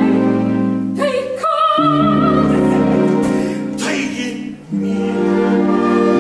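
Musical-theatre singing with orchestra: long sung notes with vibrato over sustained orchestral chords, with a short break about four and a half seconds in.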